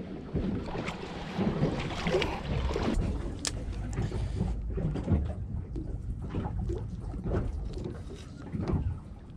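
Water and wind noise around a small fishing boat, with scattered soft knocks and handling sounds. The noise is fuller in the first half and quieter after.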